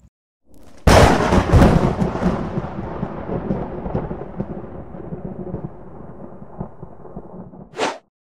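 Logo-intro sound effect: a sudden loud crash and boom about a second in, like thunder, fading slowly into a low rumble over several seconds, then a brief whoosh near the end before it cuts off.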